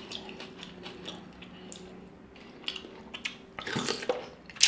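Close-miked wet squishing and small clicks as a piece of lobster tail is dipped into butter sauce, then louder biting and chewing into the lobster meat in the last second or so.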